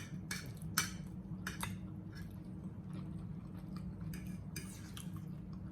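Close-miked chewing of beef liver in tomato gravy, with scattered short sharp clicks of mouth and utensils over a steady low hum.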